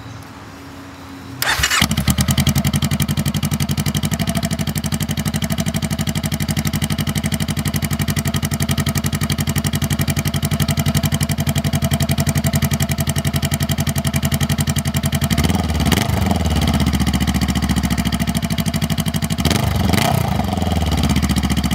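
Honda CBR500R parallel-twin engine, fitted with a Coffman's Shorty slip-on exhaust, cranked on the starter and catching about a second and a half in, then idling steadily. It is revved briefly twice near the end.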